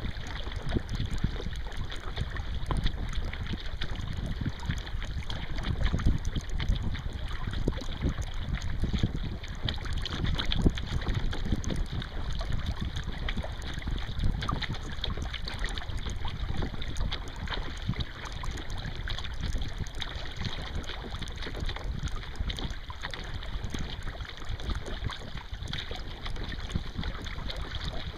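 Wind rumbling on the microphone over the splash and slosh of water as a sea kayak is paddled with a wooden Greenland paddle.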